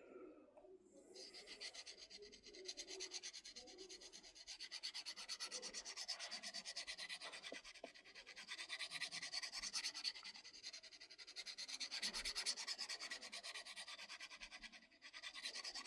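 Knife blade scraping along a pocket sharpening rod in quick, even strokes, several a second, as the edge is sharpened by hand. There is a short pause near the end.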